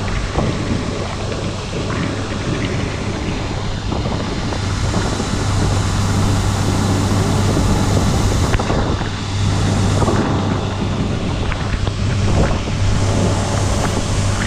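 Case IH 2188 combine harvester running steadily in wheat, a constant engine hum under dense machine noise.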